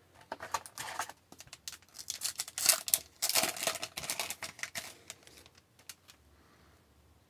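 A foil trading-card pack being opened and its cards handled: a quick run of crinkles and clicks that stops about five seconds in.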